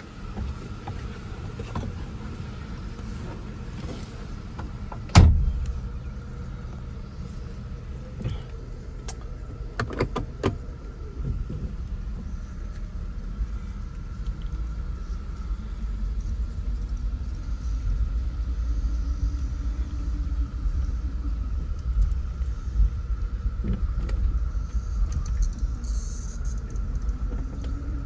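Mercedes-Benz 380 SL's 3.8-litre V8 idling, heard from inside the cabin, with a heavy thump about five seconds in and a few sharp clicks around ten seconds. From about halfway through, the low rumble grows louder as the car is pulled forward slowly.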